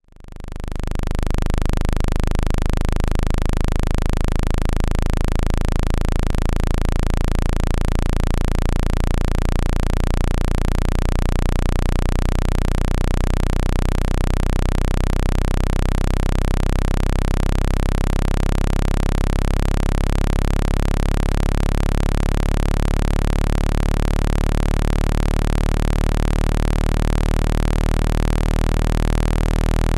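Synthetic low-pitched water-eject tone, a deep steady hum with many overtones and a slow wavering beat, fading in over the first second or two. It is meant to vibrate water out of a phone's speaker mesh.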